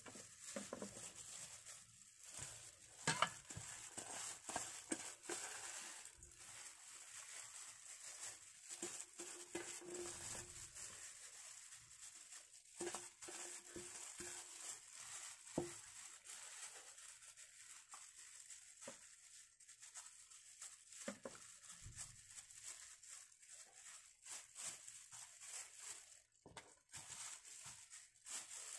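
Faint crinkling and rustling of a thin plastic food-prep glove as a hand rubs a chopped garlic, ginger and shallot paste onto a whole raw chicken in a glass baking dish, with scattered light clicks.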